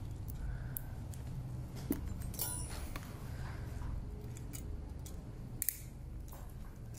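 Faint metallic clicks and light plastic crinkling as a steel plier twists a thin ligature wire around the neck of an orthodontic mini-screw held in its plastic sterile pouch, with the sharpest ticks a little before two seconds and near six seconds, over a steady low hum.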